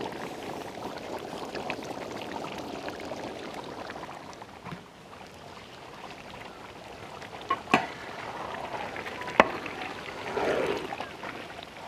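Thick chicken and mushroom masala gravy bubbling steadily in a large pot, with two sharp clicks in the second half.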